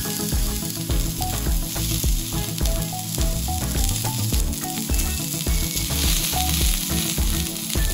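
Beef fillet steak sizzling on a hot iron griddle plate, with a steady crackling spatter.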